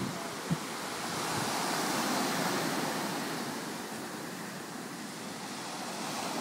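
Ocean surf breaking and washing up the beach in a steady rush, with wind buffeting the microphone. Two brief low thumps come right at the start.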